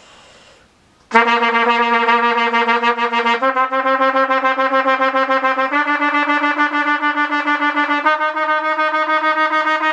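Trumpet playing a staccato sixteenth-note exercise: rapid tongued repeated notes on one pitch, then stepping up the scale to the next, four notes in all. It starts about a second in.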